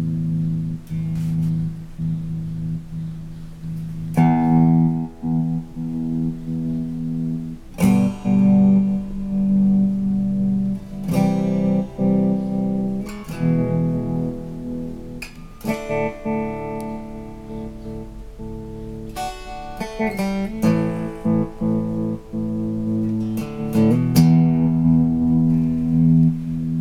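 Guitar chords played through a Montreal Assembly Rand() random tremolo pedal, a new chord struck every two to four seconds. Each chord rings on while its volume drops and returns at random, uneven moments, a glitchy, stuttering tremolo.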